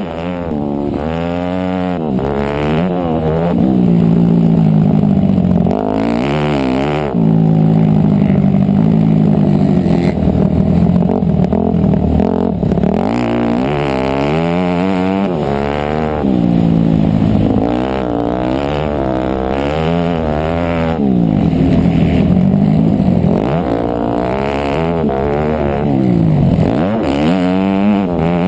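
Yamaha motocross bike's engine, ridden hard around a dirt track: its pitch climbs and drops again and again as the throttle is opened and shut.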